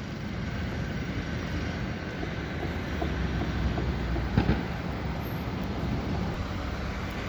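Steady low rumble of a large vehicle in street traffic, swelling as it passes about three to four and a half seconds in.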